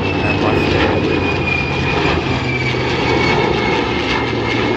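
Engines of a three-plane formation of a P-51 Mustang, an A-10 and an F-35 flying past: a loud, steady engine drone with a high jet whine slowly falling in pitch.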